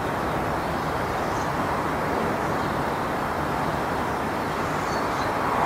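Steady, even outdoor background noise with no distinct events, of the kind left by distant traffic.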